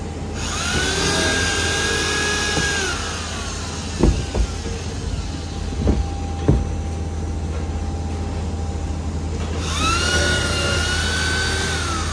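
A power tool whining up to speed, holding steady and winding down, twice. Between the two runs come four sharp knocks, over a steady low machine hum.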